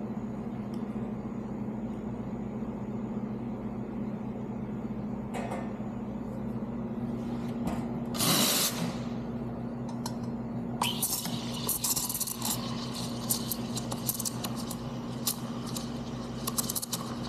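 Espresso machine humming steadily, with a short loud blast of the steam wand being purged about eight seconds in. From about eleven seconds the steam wand hisses into a pitcher of milk, with many sharp crackling spikes as the milk is aerated and steamed.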